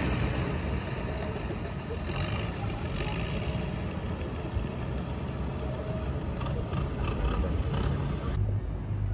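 Long-tail boat engine running steadily at low speed, a low hum under a hiss of wind and water. Near the end the hiss drops away and the engine's low hum stands out.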